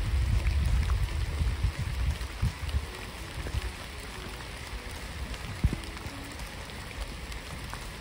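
Steady rain falling on a lake and wet grass, an even hiss with scattered drops ticking close by. Wind buffets the microphone with a low rumble for the first two or three seconds, then eases.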